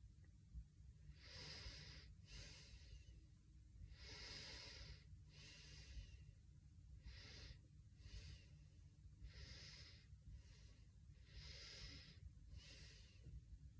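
Faint, slow breathing through the nose while the cheeks are held puffed with air and the lips pressed shut, a breath about every two seconds.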